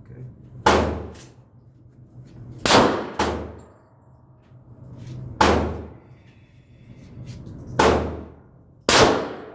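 Springfield Armory XD .45 ACP pistol firing: five loud shots a second or two apart, each fading away over a fraction of a second. The first two are each followed about half a second later by a quieter shot.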